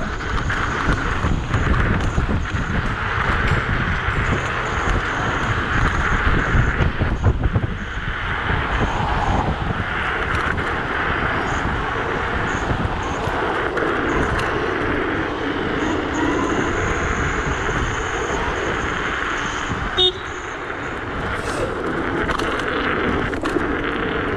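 Wind buffeting the microphone and tyre-on-road noise from a Dualtron electric scooter ridden fast, with a thin high whine coming and going. A short knock about twenty seconds in.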